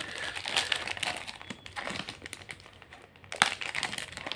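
Clear plastic wrap crinkling and rustling as it is handled and pulled off, with one sharper crackle about three and a half seconds in.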